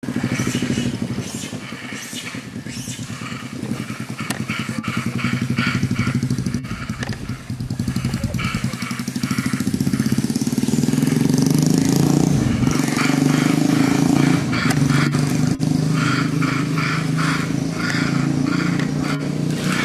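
A motor engine running steadily, getting louder about halfway through.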